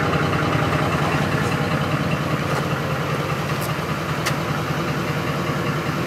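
Ford 5.4-litre V8 idling steadily while its fuel pump is jumpered to run at full speed, bypassing a faulty fuel pump driver module.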